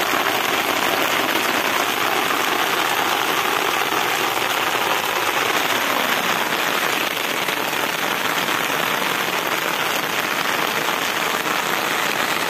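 Steady rain falling, an even patter with no breaks.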